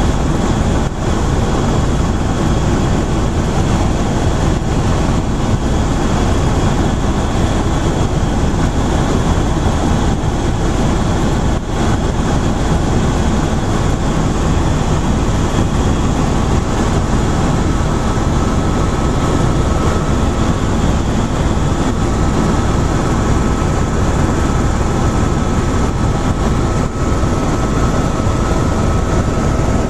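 Helicopter engine and rotor running steadily in flight, a loud constant drone heard from inside the cabin. A faint high whine joins about two-thirds of the way in.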